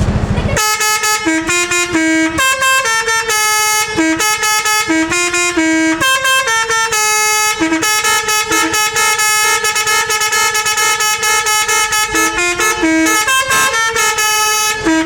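Bus-mounted Basuri telolet horn, a multi-trumpet air horn, playing a fast tune of stepped notes with short gaps between phrases. It starts about half a second in.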